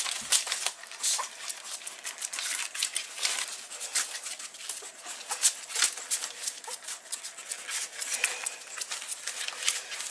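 Loose sheets of paper crinkling and rustling under a newborn puppy's paws as it crawls and steps across them: a quick, irregular string of crisp crackles.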